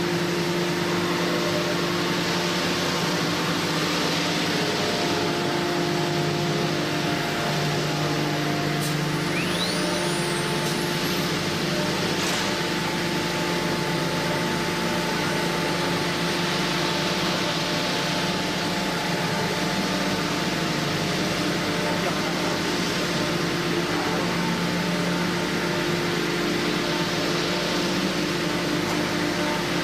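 CNC router's electric spindle running steadily: a whine of several steady tones over a broad machine hiss. A brief rising whistle comes about ten seconds in.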